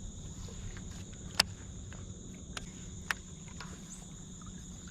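Insects keep up a steady high-pitched buzz over a low steady hum. A few sharp clicks cut in, the loudest about a second and a half in.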